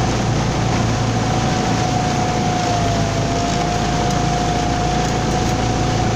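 Outboard motor of a small boat running steadily under way, with a constant low rumble and a steady high whine that dips slightly in pitch about halfway through.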